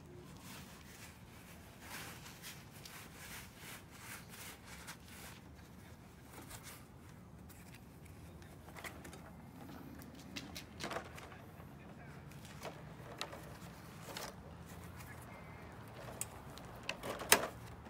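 Rustling and handling of a cloth costume being pulled over and fitted onto a metal animatronic frame, with scattered light clicks and knocks and one sharp click near the end.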